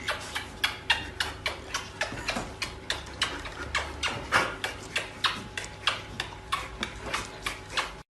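A rapid, fairly regular series of sharp clicks or taps, about three to four a second, over a low steady hum.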